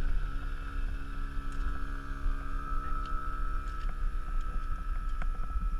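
Portable air compressor running steadily to inflate a vehicle tyre through its coiled hose: a constant buzzing tone over a fluttering low rumble, with a few light clicks.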